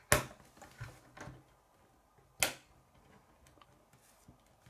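K'nex plastic rods and connectors clicking as they are pressed together: a sharp click just after the start and another about two and a half seconds in, with a few softer plastic clicks and taps between.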